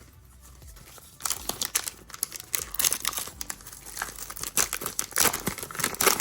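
A foil trading-card pack wrapper being torn open and crinkled by hand, a dense run of crackling starting about a second in.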